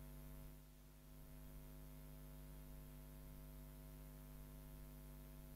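Near silence with a faint, steady electrical hum in the recording.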